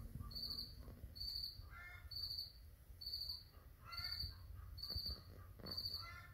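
A cricket chirping in a steady rhythm, a short high chirp about once a second. Lower-pitched calls come in about every two seconds.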